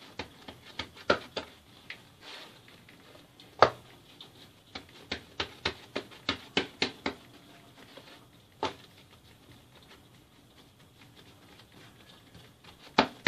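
Hands patting and pressing a slab of croissant dough with margarine sealed inside against a countertop, making a series of soft slaps and sharp taps. There are scattered taps at first, then a quick run of about a dozen at roughly four a second in the middle.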